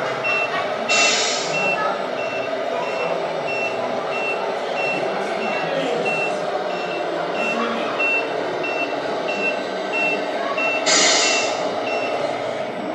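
Reversing beeper from a radio-controlled scale model truck's sound module, beeping steadily about one and a half times a second. A short air-brake hiss comes about a second in and again near the end, where the beeping stops.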